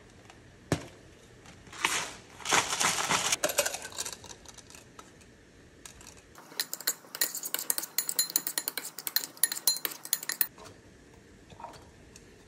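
Kitchen prep sounds: a gritty rustle as seasoning comes out of a spice bottle. After that, about halfway through, a long quick run of sharp clinks and scrapes as a metal spoon works against a glass jar and bowl.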